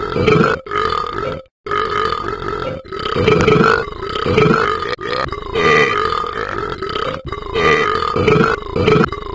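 A person burping: a string of long, loud burps one after another, with short breaks between them.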